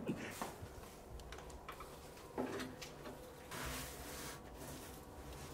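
Scattered light knocks and scuffs of people moving over debris, then a longer scrape about three and a half seconds in as an old wooden plank door is handled.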